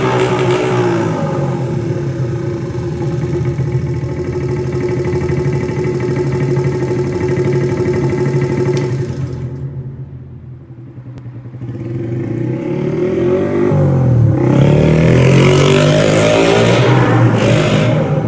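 Custom Honda Monkey's small single-cylinder four-stroke engine running through a Pretty Racing CB400F-style exhaust. The sound fades away to its quietest about ten seconds in, then comes back louder with the pitch bending up and down, as the bike moves off and returns or revs.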